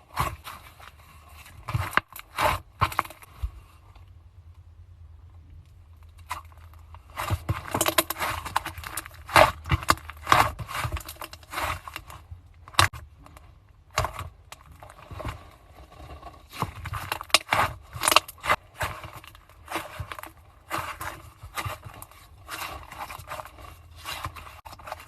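Slime being squeezed and pressed by hand, making irregular sticky clicks, pops and crackles, with a quieter lull a few seconds in.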